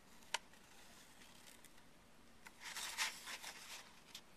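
Faint handling of cardstock while a pen marks along its edge: a single click shortly after the start, then about a second of soft scratching and rustling of the paper past the middle, with a few small ticks near the end.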